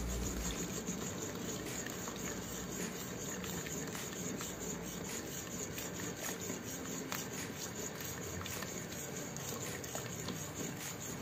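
Faint steady bubbling and sizzling of thickened sugar syrup in a steel pot as gram flour and ghee batter is poured in and stirred, with scattered light scrapes and clicks of a metal spatula.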